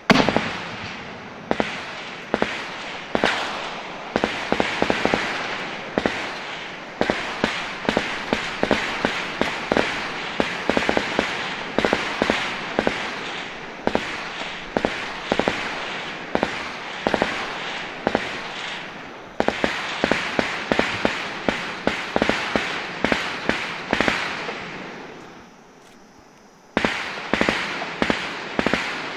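Sustained small-arms gunfire: many sharp shots in rapid, irregular bursts, with an echoing wash between them across the hills. The firing dies away briefly about 25 seconds in, then starts again.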